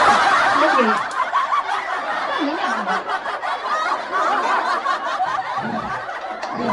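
A crowd laughing, a canned laugh track that starts suddenly, loudest in the first second, then carries on steadily and eases off near the end.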